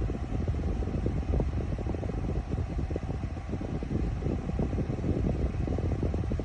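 Honeywell 9000 BTU portable air conditioner running: its fan blowing a steady, low rush of air that flutters unevenly.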